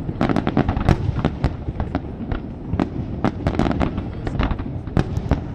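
Aerial fireworks display: shells bursting in a rapid, irregular run of sharp bangs, several a second, over a continuous low rumble.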